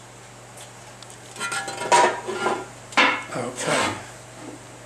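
Ford Model A cast-iron cylinder head being set down onto the bare engine block: metal clattering and scraping, with two sharp clanks about two and three seconds in.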